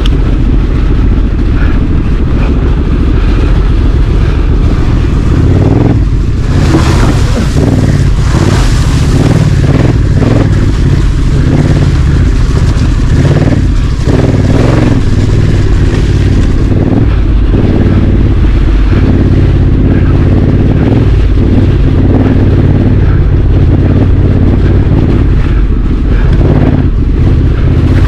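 Honda Africa Twin CRF1100 parallel-twin motorcycle engine running while riding off-road. There is a louder hissing stretch from about six to nine seconds in.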